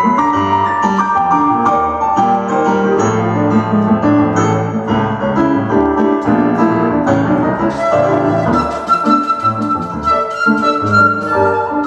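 Piano playing a flowing run of notes, joined about two-thirds of the way through by a 1.6-shaku seven-hole shakuhachi holding long notes.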